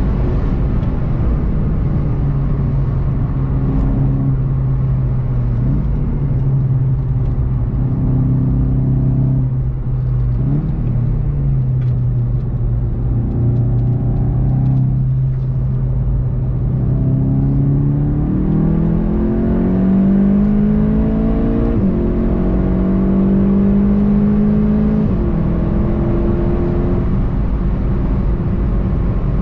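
Volkswagen Golf 7 GTI TCR's 2.0-litre turbocharged four-cylinder engine heard from inside the cabin over constant road and tyre noise. The engine holds a fairly steady low note while the car brakes for a slow corner, then pulls hard with rising pitch, broken by two upshifts about three quarters of the way in.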